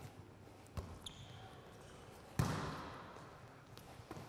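A volleyball being hit during play, heard as a few thuds that echo in the sports hall, with one loud hit about two and a half seconds in.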